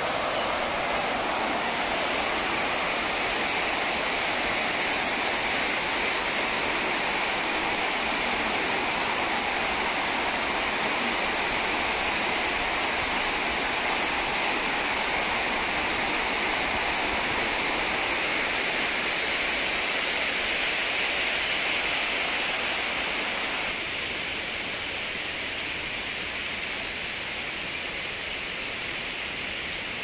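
Steady rush of river water pouring over a weir, a constant noise with no breaks. About three-quarters of the way through it drops slightly quieter and thinner.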